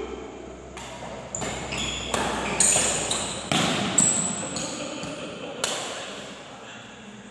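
Badminton rackets hitting a shuttlecock in a fast doubles rally: a string of sharp smacks, roughly half a second to a second apart, each ringing on briefly in the hall's echo. The hardest hits come around three and four seconds in, and the rally stops about six seconds in.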